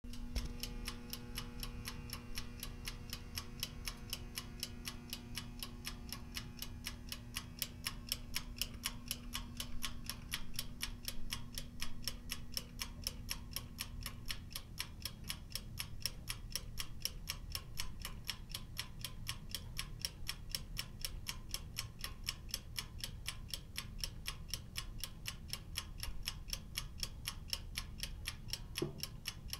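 Oven timer ticking steadily, an even run of sharp ticks, with a low hum underneath that dies away about halfway through.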